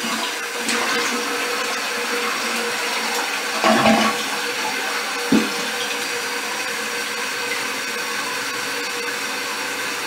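Old Gerber toilet flushing, with a steady rush of water and a brief louder surge about four seconds in, then a short knock. This is a test flush after fitting an extra-thick tank-to-bowl gasket, to check that the seal holds.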